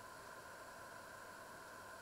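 Faint, steady hiss with nothing happening: near-silent room tone and recording noise.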